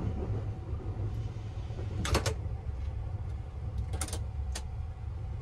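Steady low hum inside a Sunrise Express sleeper-train compartment, with a few brief clicks and knocks from handling things in the room: one about two seconds in, and two close together about four seconds in.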